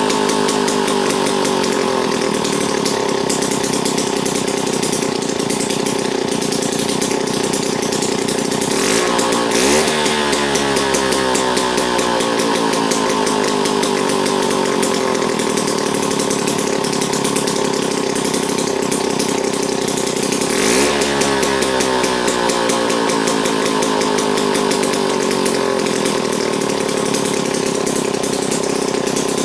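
Early Tecumseh two-stroke single-cylinder engine running steadily on a test bench. Its speed briefly changes twice, about ten seconds in and again about twenty-one seconds in.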